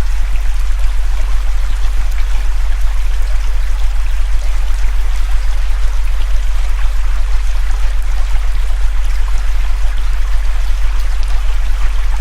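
A steady, very low synthesized hum tone, the loudest part of the mix, over the even rushing of a flowing river. The overall loudness throbs at a fast, regular rate.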